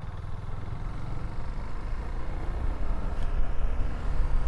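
KTM Duke 390's single-cylinder engine pulling away under way, with a low rumble of wind on the microphone. The sound grows steadily louder as the bike picks up speed.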